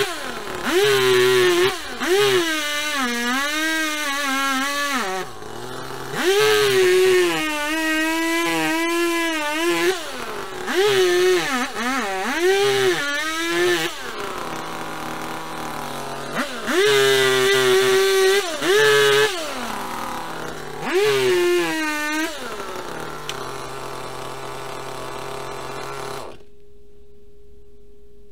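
Rental two-stroke chainsaw revving up in about six bursts and dropping back to idle between them, its pitch sagging and wavering in the longer bursts as it saws into a tree stump and its roots. The engine sound cuts off abruptly near the end, leaving a faint steady tone.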